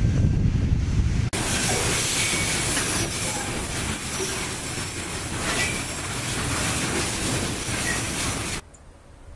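Wind buffeting the microphone over a low rumble, then about a second in a sudden switch to a freight train of tank wagons rolling past close by on a curve: steady wheel-and-rail noise with faint intermittent wheel squeal. It cuts off sharply near the end.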